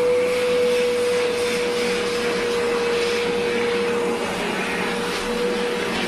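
Hose-fed pet hair dryer blowing steadily into a dog's wet coat: a constant rush of air with a steady whine held at one pitch.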